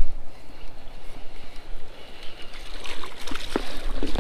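A hooked largemouth bass splashing at the pond's surface while it is reeled in, under wind rumble on the microphone. A run of sharp clicks and knocks comes in near the end.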